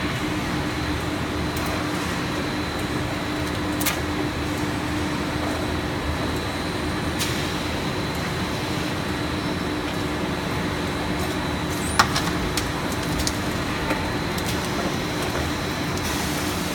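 PET sheet extrusion line running in a factory: a steady machinery drone with a low hum and a faint high whine, broken by a few sharp clicks, the loudest about twelve seconds in.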